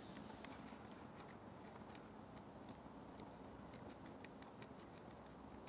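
Faint, irregular light clicks and ticks of a small plastic 1/24-scale RC car being handled, several a second, over a quiet hiss.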